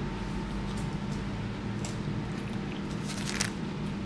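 Chewing a bite of sub sandwich, soft mouth sounds. About three seconds in comes a short crinkle, likely the sandwich's paper wrapper as the sub is set down. A steady low hum runs underneath.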